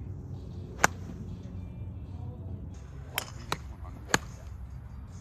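Golf iron striking a ball off turf: a sharp crack about a second in and another about four seconds in, with two fainter clicks shortly before the second strike. A steady low rumble of wind runs underneath.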